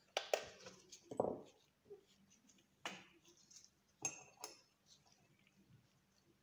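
Light clicks and knocks of a plastic nail-tip stick being handled and set into a UV/LED nail lamp: several short taps, the loudest in the first second and a half, then fainter ones, with two close together about four seconds in.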